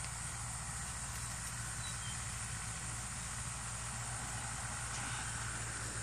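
Steady outdoor background noise: a low hum under an even hiss, with no distinct events.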